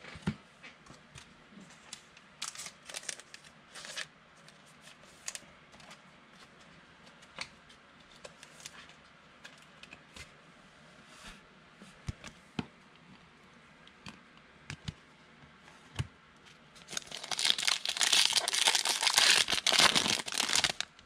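Trading cards being handled, with scattered light clicks and rustles, then a loud crinkling tear of a foil card-pack wrapper being ripped open, lasting about four seconds near the end.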